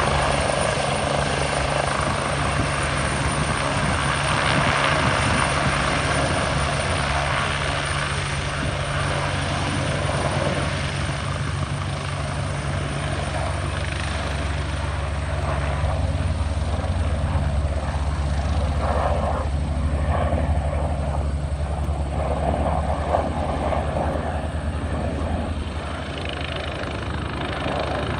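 RNZAF military helicopter in flight over the airfield: a steady rotor thrum and engine hum. The higher hiss eases from about halfway through while the low rotor sound stays strong.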